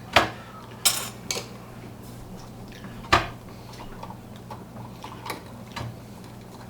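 Hard objects, most likely small tools and metal parts, clinking and clicking as they are handled: about six separate sharp clicks, the loudest just after the start and about three seconds in, over a steady low hum.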